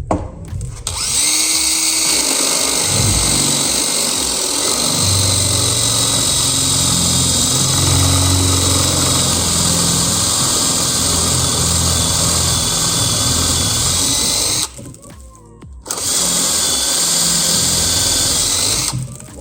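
Drill boring into a metal lock cylinder with a larger bit, running steadily for about 14 seconds, pausing for about a second, then running again for about 3 seconds.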